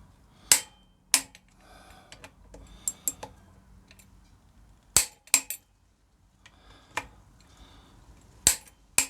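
Sharp metallic clicks of a click-type torque wrench and hand tools on the motorcycle's rear brake caliper bolts, set to 28 Nm. About six loud clicks, mostly in pairs, with quieter rustling between them.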